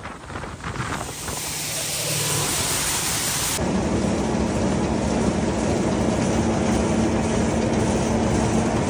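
Grinder-mixer running while grinding shelled corn: a loud, continuous rushing and rumbling. About three and a half seconds in, a steady low machine hum joins it and holds.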